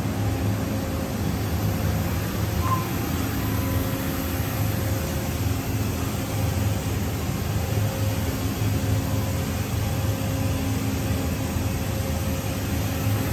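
Makino a71 horizontal machining center running a program: a steady mechanical hum and hiss with a few faint low tones held throughout.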